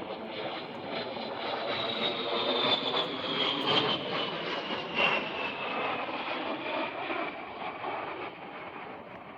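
An A-10 Thunderbolt II's twin turbofan engines whining as it flies past, over a jet rumble. The high whine falls steadily in pitch as the jet grows louder to a peak about halfway through, then fades.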